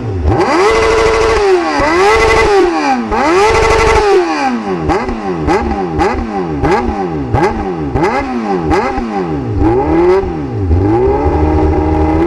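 An engine revved over and over, its pitch sweeping up and down in even arches that come faster after about four seconds, with a steady whine held above it.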